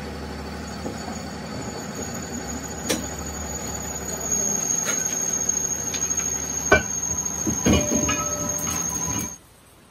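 Lathe running with a cast iron truck brake drum in its chuck: a steady machine hum, a thin high-pitched squeal from about four seconds in, and a few sharp metal knocks. The noise stops suddenly near the end.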